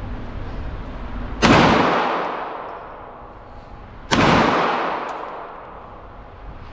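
Two handgun shots about two and a half seconds apart, each followed by a long fading echo off the walls of an indoor shooting range.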